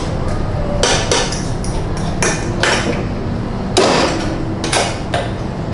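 A utensil knocking and scraping inside a stainless steel mixing bowl as steamed potatoes are crushed for mash, in irregular strikes roughly every half second to second, the loudest about four seconds in. A steady low hum runs underneath.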